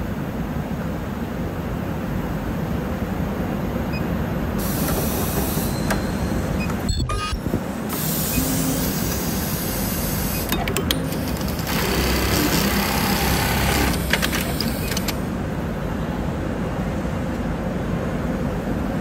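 Hikari pneumatic elastic-joining sewing machine running an automatic cycle: a steady low mechanical hum, broken by three bursts of compressed-air hissing from its pneumatic cylinders, each lasting one to three seconds.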